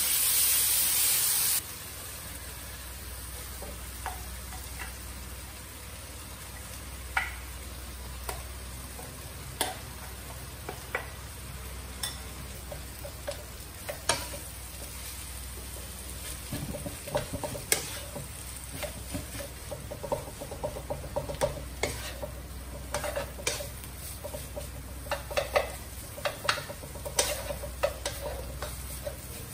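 Food frying in a pan. A loud sizzle stops abruptly about a second and a half in, then a quieter sizzle continues over a low steady hum. A spatula scrapes and taps against the pan in short clicks, more often in the second half.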